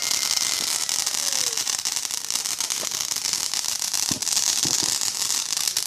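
Ground fountain firework spraying sparks: a steady hiss with fine crackle and a few low pops about four seconds in.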